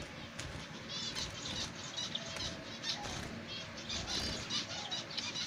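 Caged zebra finches calling, a rapid series of short, nasal chirps repeated throughout, with wing flutters as birds move about the cage.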